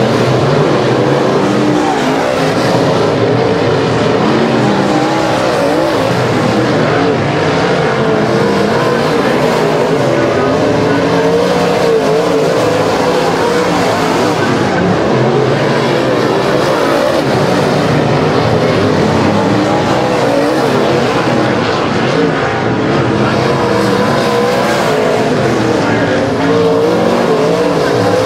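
A pack of dirt-track modified race cars running laps, several V8 engines at high revs. Their wavering pitches overlap continuously as the cars come round.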